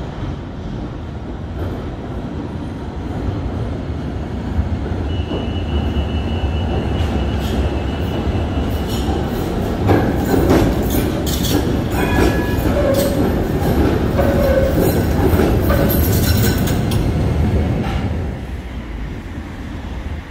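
PCC tram running through a tunnel over curved track and points, its rumble building as it approaches and loudest as it passes, with squealing wheels and sharp clacks over the rail joints, then dropping away near the end.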